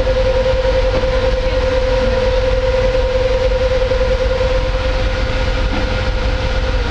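Machinery running: a steady, unchanging whine over a strong low rumble.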